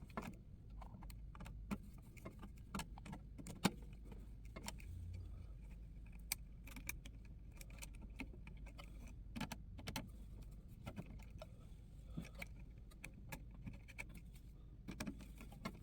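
Irregular light clicks and small metallic rattles of wires and a screwdriver being worked into a heat press control panel's terminals.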